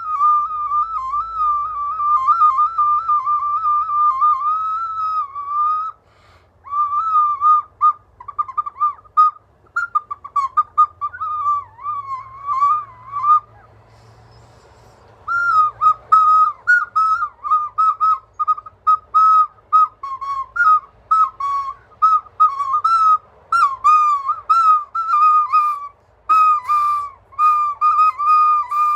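A small svistulka folk whistle blown in warbling, trilling runs around one high pitch, its note wavering as the holes are covered and uncovered. After a long unbroken run it breaks into shorter phrases, with a silent pause about halfway through, then many short chirping notes toward the end.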